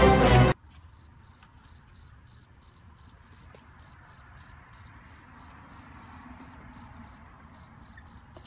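Background music cuts off about half a second in, leaving a cricket chirping: a steady run of short, high chirps at one pitch, about three a second, with two brief pauses.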